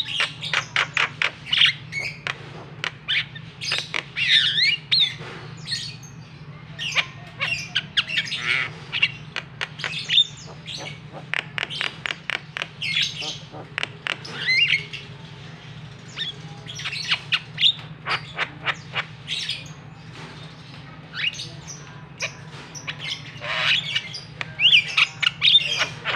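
Javan myna singing a long, varied song: runs of rapid sharp clicking notes mixed with whistled slurs and harsh squawks, broken by short pauses.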